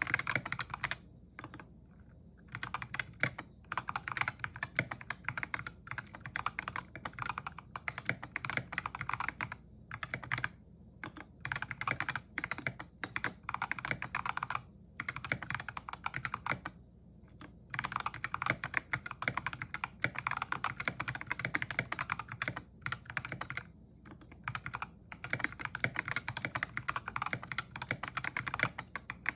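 Continuous typing on an Epomaker GK61xs mechanical keyboard with stock Ajazz Kiwi tactile switches, tape-modded, with lubed stock stabilizers, under tall SA-profile keycaps. Fast runs of keystrokes with short pauses between bursts.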